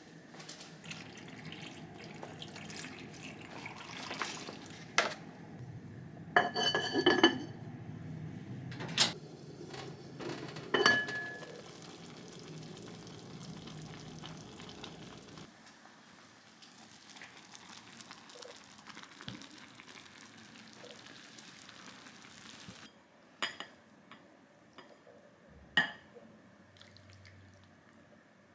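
Kitchen sounds: dishes and utensils clinking over a steady hiss. The hiss stops abruptly about halfway through, leaving a few scattered clicks and clinks.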